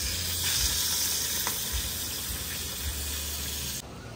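Hot oil sizzling steadily in a small pan as a piece of fish fries on a portable gas stove; the sizzle cuts off abruptly near the end.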